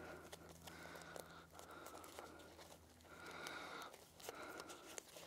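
Near silence: faint outdoor background with a low steady hum, a faint high tone that comes and goes, and a few small clicks.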